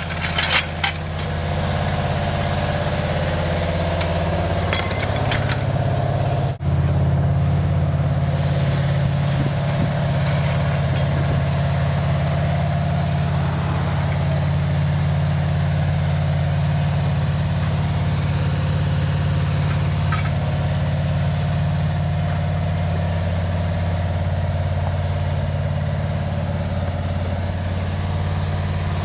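A vehicle engine idling steadily, with a brief drop-out about six seconds in.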